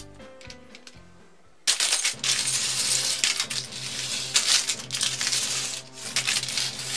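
Loose CaDA plastic building-brick parts poured out of a plastic bag onto a table and spread about by hand: a dense clatter of small pieces, starting about two seconds in.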